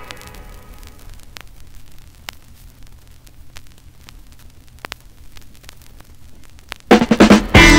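Surface noise of an acetate record disc in the blank groove between tracks: faint hiss and a low steady hum, with scattered clicks and pops. The last notes of a song die away at the start, and a full band comes in near the end.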